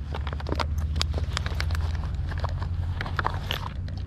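Irregular clicks and knocks of metal-detecting gear being handled, over a steady low rumble on the microphone.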